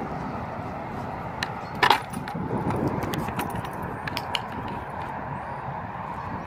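Light clicks and clinks as a dog noses into a plastic bucket, with one sharper, louder click about two seconds in. A steady outdoor background noise runs under it.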